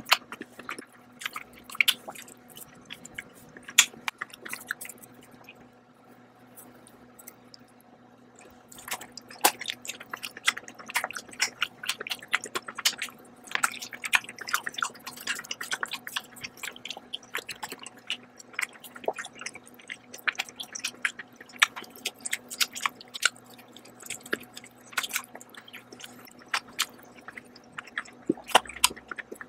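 Wet chewing of soft poached chicken and instant noodles: a dense, irregular run of mouth smacks and clicks, easing off for a few seconds about five seconds in before picking up again.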